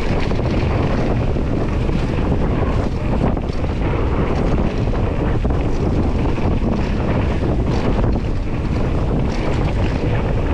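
Wind rushing over the microphone, with the steady rumble and fine rattling of a mountain bike riding fast down a dirt trail.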